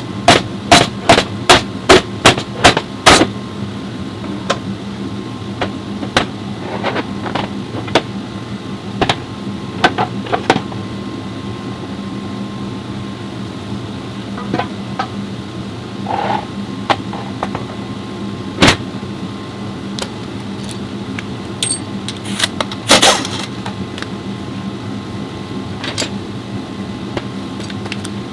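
Hand tools striking and clinking on metal transmission parts: a quick run of about ten sharp taps in the first three seconds, then scattered single knocks and a short clatter about 23 seconds in, over a steady workshop hum.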